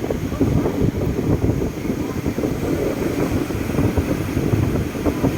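Wind buffeting the microphone: a loud, unsteady low rumble that flutters and gusts without a break.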